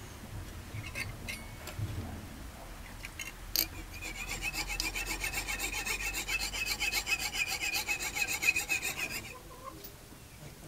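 Jeweler's fret saw cutting a thin copper-faced metal blank, a quick, even run of rasping back-and-forth strokes that starts about three and a half seconds in and stops about nine seconds in. A few light clicks come before it.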